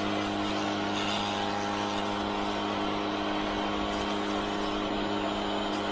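Pressure washer running with a steady hum, its spray blasting dirt off a riding mower's engine.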